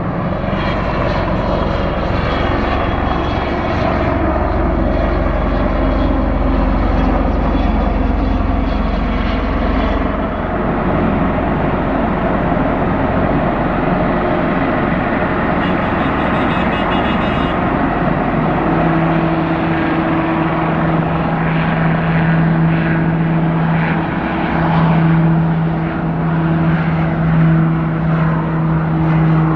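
Airbus H225M Caracal helicopter running on the ground, its turbines and main rotor turning as it taxis. A brief high whine comes in a little past halfway, and a steady low hum sets in about two-thirds of the way through.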